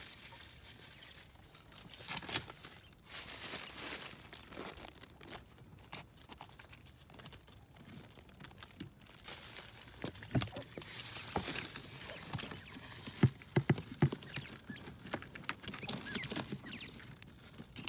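Leaves and dry leaf litter rustling and crinkling as the plants in a quail enclosure are brushed aside, with a few short knocks about two-thirds of the way through.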